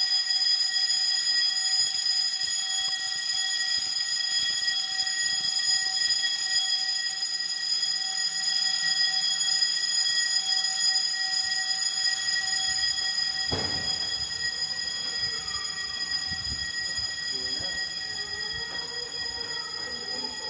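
Building fire alarm sounding a continuous, unbroken high-pitched tone. A single knock comes about two-thirds of the way through, and the alarm grows a little fainter near the end.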